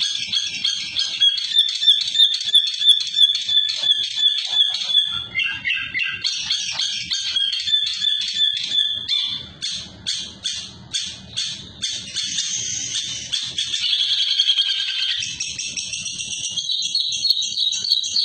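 Caged songbird singing loudly: a long, fast run of rapid repeated high notes with a sustained whistle running under them, with short breaks about five seconds in and again near the middle.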